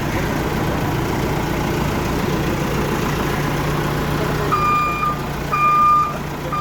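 Bull HD100 backhoe loader's diesel engine running steadily; a little past halfway through, its reversing alarm starts beeping, about one beep a second.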